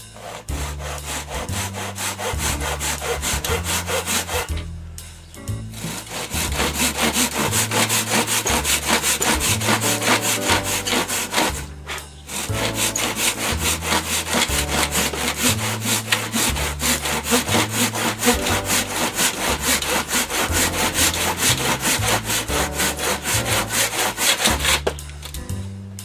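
Japanese pull saw cutting the end off a venetian blind to shorten it, in fast, steady back-and-forth strokes, with two brief pauses about five and twelve seconds in.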